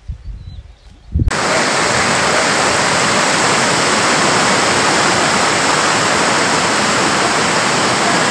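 Fast-flowing floodwater rushing loudly and steadily. It begins abruptly about a second in, after a quieter stretch with a few low thumps.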